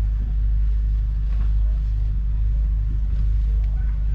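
Deutz-Fahr 7250 Warrior TTV's 6.1-litre six-cylinder diesel idling with a steady low rumble.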